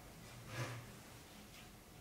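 Faint room tone with one soft, brief handling sound about half a second in, a hand with a paintbrush moving against the sketchbook on its wooden stand.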